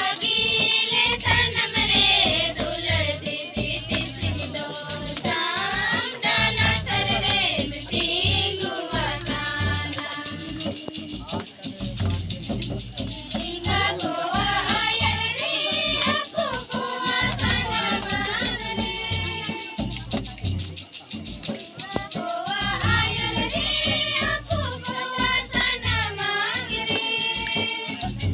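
A group of women singing a Mundari welcome song together and clapping along, over a low, regular beat.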